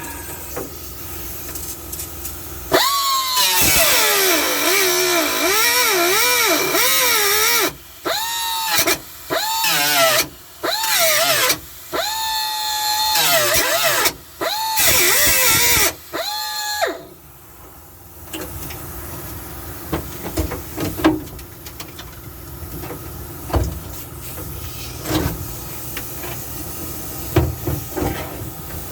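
Power cutting tool cutting into the sheet metal of an old truck floor pan in about seven loud bursts, its whine wavering up and down in pitch as it bites. After that come quieter metal handling noises with a few sharp knocks.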